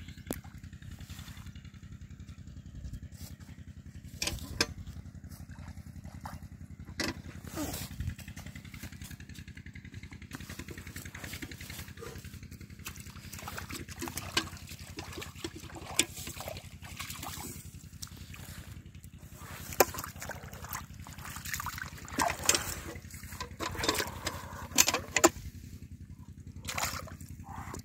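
Shallow muddy water splashing and sloshing as barefoot feet and hands work through it, feeling for fish by hand, with scattered sharp splashes that grow busier toward the end. A steady low drone runs underneath.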